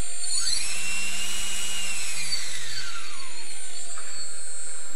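Crash-damaged RC plane brushless motor spinning with no propeller, driven from an ESC and servo tester: its whine climbs steeply about half a second in, holds high for a second or so, then falls slowly. The motor has a bent shaft and a bad front bearing.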